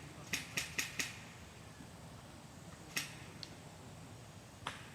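A run of sharp snaps: four in quick succession in the first second, then single snaps about three seconds in and near the end, over a low steady background hum.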